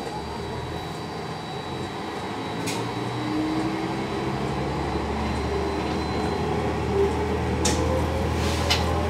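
Diesel railcar pulling away from a station: its engine hum grows steadily louder as it gathers speed, with a faint whine slowly rising in pitch. A few sharp clicks come through, the loudest two near the end.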